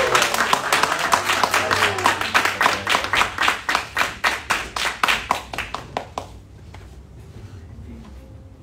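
Congregation applauding: a burst of hand clapping that thins out and stops about six seconds in.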